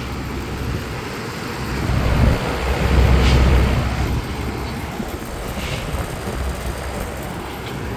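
A 1987 Lennox HS18 three-ton central air conditioner's outdoor condensing unit running steadily, compressor and condenser fan going, under continuous load in the heat. A louder low rumble swells for a couple of seconds in the middle.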